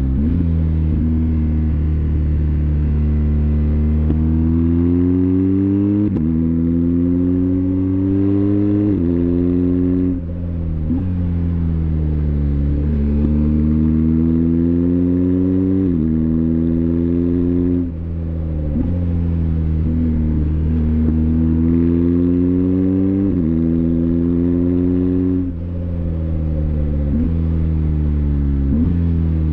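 BMW R1250GS Adventure's boxer-twin engine accelerating hard: the engine pitch climbs and falls sharply at each gear change, over and over, with brief lifts off the throttle about a third of the way in, past the middle and near the end.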